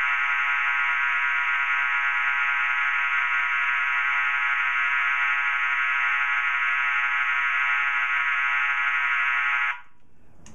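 Two System Sensor MA series fire alarm horn/strobes sounding together on their electromechanical tone: a steady, harsh horn buzz with many overtones. It cuts off suddenly near the end.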